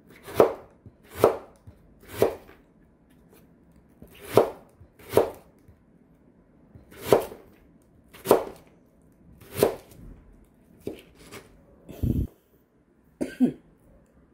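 A knife cutting through Korean radish and striking a plastic cutting board: about eight slow, separate cuts roughly a second apart, as the radish is cut into flat square pieces. A duller, deeper thud comes near the end.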